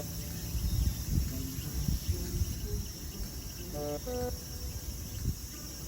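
Crickets and other insects shrilling in a steady high-pitched chorus, over uneven low rumbling that is strongest in the first half.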